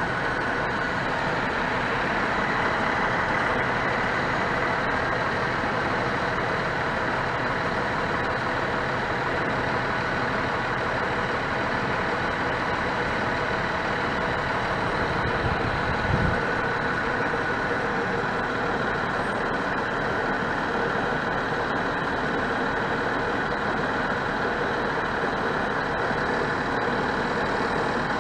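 Crane truck's diesel engine running steadily, powering the hydraulic boom as it lifts a cut section of tree. A brief low thump comes about halfway through.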